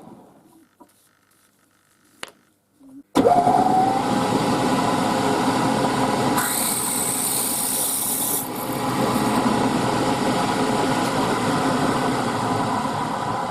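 Near silence with a couple of faint clicks, then about three seconds in a machine-tool motor starts suddenly, its whine rising briefly as it spins up, and keeps running steadily. A high hiss joins for about two seconds midway.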